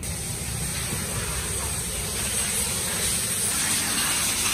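Steady hissing spray of water from a washer hose onto a motorcycle.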